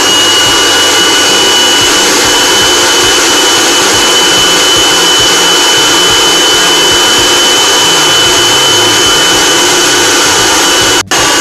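Food processor motor running steadily at full speed with a high, even whine as it whips cream cheese, sugar and heavy cream into a filling. The motor cuts out for an instant near the end.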